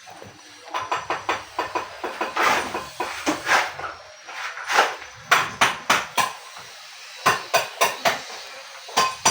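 Irregular sharp knocks and clanks of hand tools on building materials, coming in quick runs of several a second.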